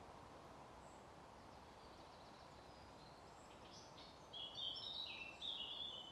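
Faint woodland ambience: a soft steady hiss, with a bird singing short chirping phrases from about four seconds in.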